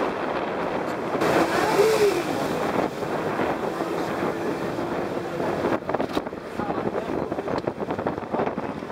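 Wind buffeting the microphone over the rush of choppy sea water, heard from aboard a moving boat.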